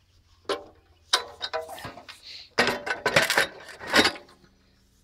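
Metallic clanks and clinks as a Makita metal cut-off saw is set down and shifted on a steel plate between angle-iron guides, metal striking and scraping on metal. A single clank comes about half a second in, then bunches of sharp ringing clinks, the busiest and loudest in the middle, with a last knock near the end.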